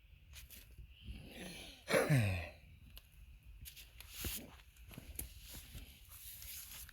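A person's voice: one short groan about two seconds in, falling steeply in pitch, among scattered light clicks and rustles.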